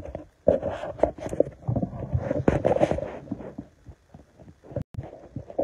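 Handling noise on a phone's microphone: a run of irregular thumps and rubbing as the phone is knocked and turned about, with the sound cutting out for a moment near the end.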